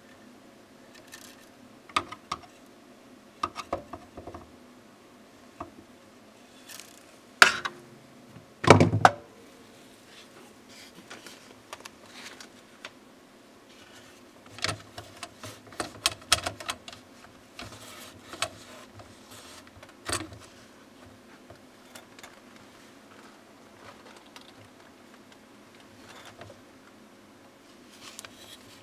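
Irregular plastic clicks, knocks and rattles from the print-head carriage and housing of an opened Epson inkjet printer being handled by hand. The loudest is a sharp knock and then a short rattle about eight or nine seconds in.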